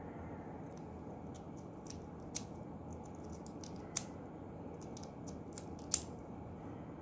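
Light clicks and taps of small hard parts being handled, three of them sharper than the rest, over a steady background hiss.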